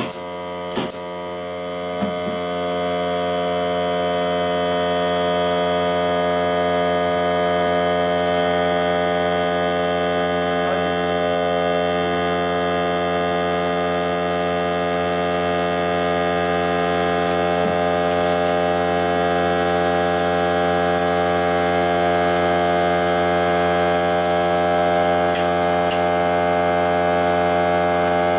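Greenworks 40 V cordless air compressor's motor running steadily, refilling its tank; it swells up over the first few seconds and then holds an even hum. There are two sharp air-nailer shots in the first couple of seconds.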